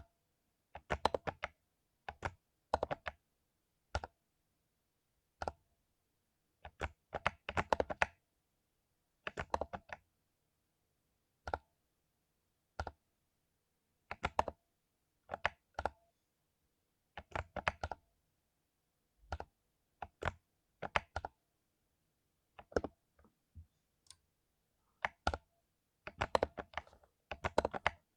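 Mechanical keyboard with lubed Cherry MX Silver linear switches being typed on in short bursts: quick runs of key clacks separated by pauses of a second or so.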